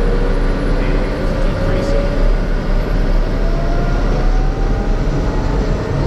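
Piper Meridian M500's Pratt & Whitney PT6A turboprop and propeller running at low power just after engine start: a steady, loud whine over a deep rumble, with a tone that slowly rises in pitch.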